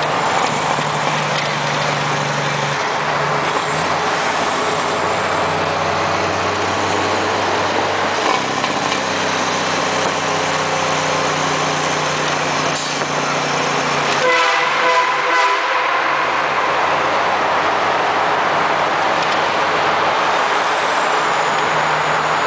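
Dump truck running through a road tunnel, with steady engine and road noise throughout. About two-thirds of the way in, a train horn fitted to the truck sounds in a quick series of short blasts.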